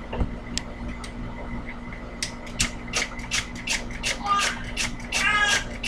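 A run of sharp clicks and knocks, sparse at first, then quickening to about four or five a second. A child's voice comes in over the last second and a half.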